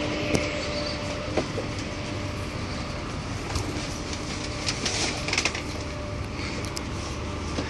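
Steady low rumble and hum inside a double-decker train carriage, with several sharp knocks and bumps from passengers moving through the aisle with their bags.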